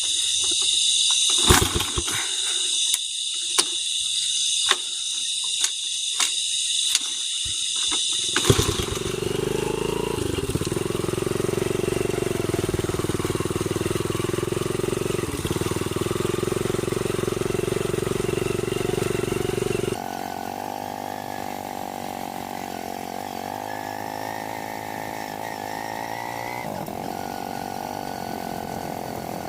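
Night insects chirping, with a few clicks and knocks. About eight seconds in, a motorcycle engine starts and runs steadily. From about twenty seconds in, the motorcycle is heard underway, its engine pitch rising and falling.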